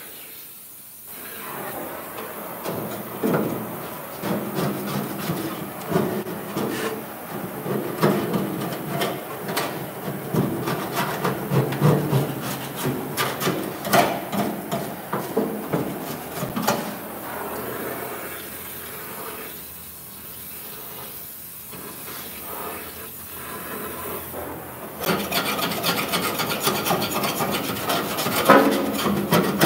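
Irregular scraping and rubbing of rusted-through sheet metal and loose rust flakes inside a car door's rotten lower edge, with a steadier, louder rasping in the last few seconds.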